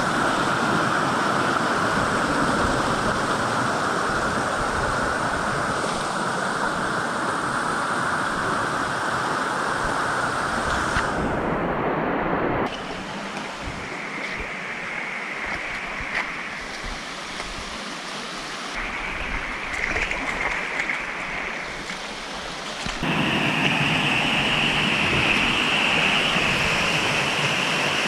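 Rushing water of a shallow rocky stream running over small rapids, a steady hiss. It turns suddenly quieter a little before halfway and grows louder again about four-fifths of the way through.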